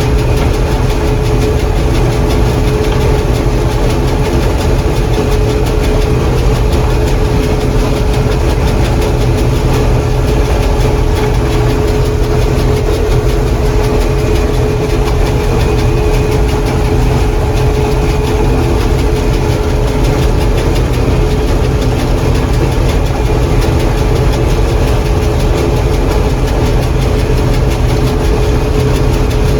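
John Deere 4400 combine running steadily while harvesting corn: a loud, even drone of engine and machinery with one steady hum held throughout.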